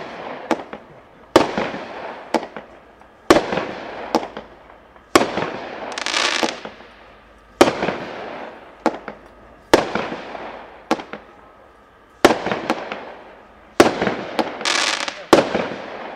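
Consumer fireworks cake firing shot after shot, about a dozen sharp bangs one to two seconds apart. Each bang is followed by a hiss from the silver-wave tails that fades over about a second.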